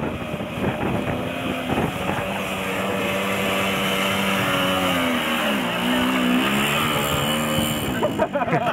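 Simson Schwalbe moped's 50 cc two-stroke single-cylinder engine running under load through mud. Its revs dip and pick up again about halfway through.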